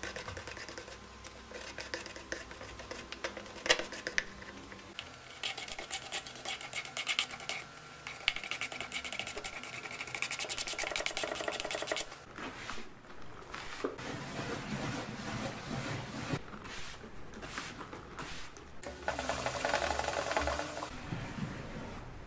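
Scraping and rubbing on old wood: a plastic spatula spreading and working filler paste into the top of a wooden chest, with rapid scratchy strokes. The sound changes abruptly about 12 seconds in and again near 19 seconds as the work cuts between short pieces.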